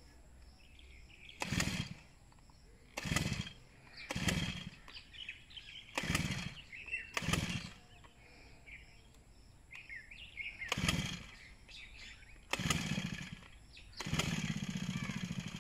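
Two-stroke brush cutter being pull-started again and again: eight short pulls of the recoil starter, each turning the engine over briefly without it catching. The last pull, near the end, runs about a second and a half. The engine has overheated.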